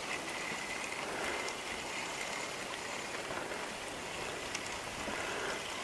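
Steady soft hiss of small waves lapping and light wind on the lake, with a faint thin high tone that fades out about four seconds in.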